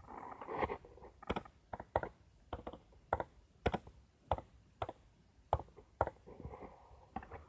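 Sharp, uneven clicks of computer keys being pressed, about one or two a second, with some soft rustling near the start and near the end.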